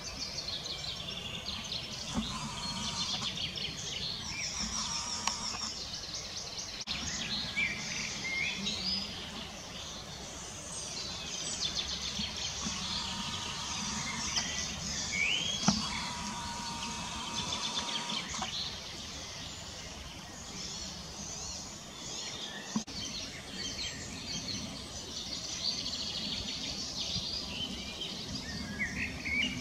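Several small songbirds singing at once, overlapping chirps and rapid trills, over a steady low background rumble.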